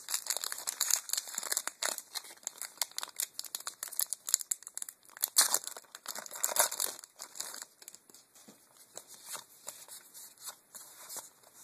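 Foil wrapper of a Magic: The Gathering booster pack crinkling and tearing open, loudest around the middle. Toward the end it gives way to a lighter rustle of cards being slid through the hands.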